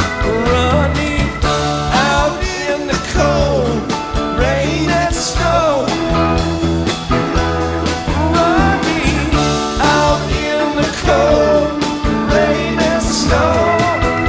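Live rock band playing an instrumental passage: a lead electric guitar plays bending melodic phrases over a steady bass line and drums.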